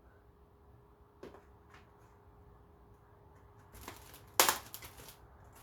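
Hand tools being handled in plastic packaging: a light click about a second in, then rustling with one sharp, loud clack about four seconds in.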